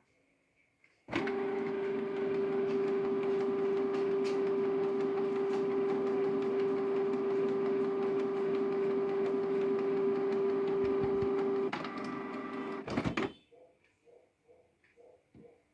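Canon PIXMA G670 ink-tank inkjet printer's mechanism running loudly, with a steady whine for about ten seconds. The sound shifts briefly near the end, then stops.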